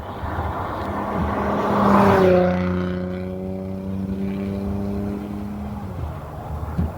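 A vehicle passes close by. Its rushing sound is loudest about two seconds in, then its engine note drops in pitch as it goes past and fades out about six seconds in, over a steady low engine hum.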